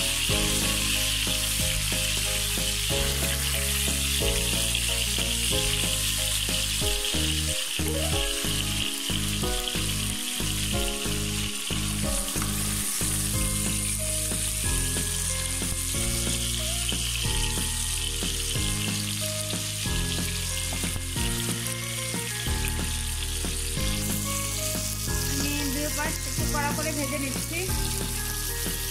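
Spice-coated pieces of giant snakehead fish sizzling steadily in hot oil in a nonstick pan as they are fried crisp. A soft background tune with changing low notes runs underneath.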